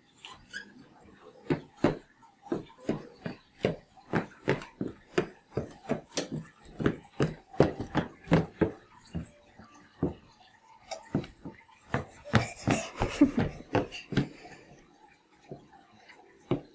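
A toddler's shoes tapping on a hardwood floor in short, uneven steps, about two to three a second, as she walks in shoes for the first time. A louder burst of noise comes about twelve seconds in.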